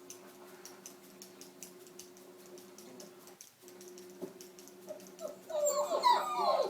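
Faint rapid ticking over a steady low hum, then, about five and a half seconds in, loud high-pitched dog whimpering and yelping that keeps changing in pitch.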